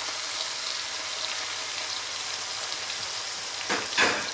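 Hot cooking oil, left over from frying sea bass, sizzling steadily in a pan, with two short, louder sounds near the end.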